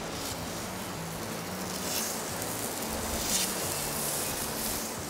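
Oiled raw tuna steaks sizzling as they are laid on a hot griddle pan, a steady hiss that swells about two seconds in and again near the end as more steaks go down.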